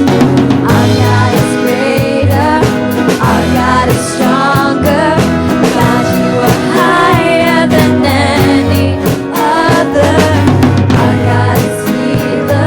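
Live worship band music: a drum kit keeping a steady beat under low bass notes, with a wavering melody line carried over the top.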